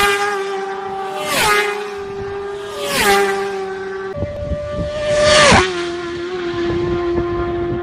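Racing motorcycles passing at full speed one after another, about four times, each high engine note dropping sharply in pitch as the bike goes by.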